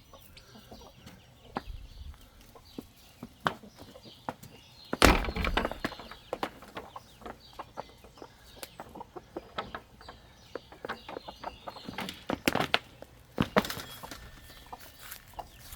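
Chickens clucking, with many short scattered clicks and a loud sudden burst about five seconds in.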